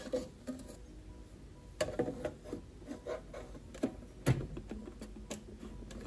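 Light plastic clicks and knocks, about half a dozen spread out over several seconds, as a capsule coffee machine's clear plastic water tank is set back onto the machine and pushed into place; the loudest knock comes a little past the middle.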